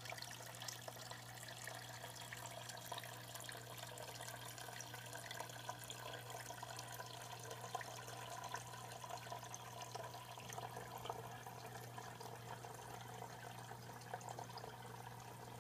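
Water trickling and dripping steadily down an aquaponic waterfall unit into its tank, faint, over a steady low hum.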